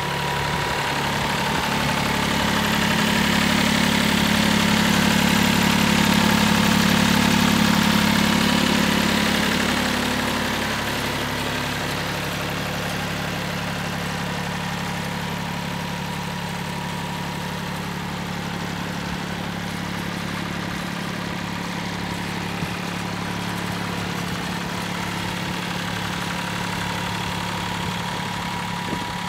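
Mitsubishi MT205 compact tractor's diesel engine idling steadily, louder for several seconds near the start before settling back to an even level.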